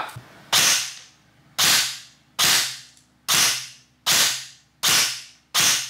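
Electric airsoft rifle (ICS AEG) firing seven single semi-automatic shots, about one a second, each a sharp crack of the gearbox cycling that dies away quickly. The BBs are being fired through a chronograph for a muzzle-velocity test.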